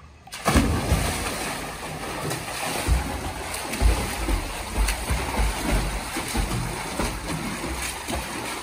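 A swimmer diving into a small pool with a sudden splash about half a second in, followed by continuous heavy splashing and churning water as swimmers thrash nearby, with irregular low thuds.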